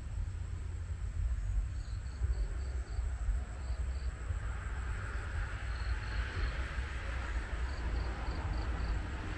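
Short high chirps in runs of two to five, about four a second, over a steady low rumble.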